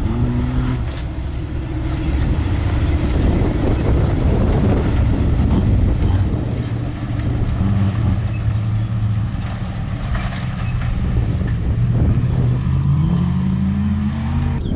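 Off-road race vehicle's engine running steadily under power, its pitch climbing near the end as it revs up.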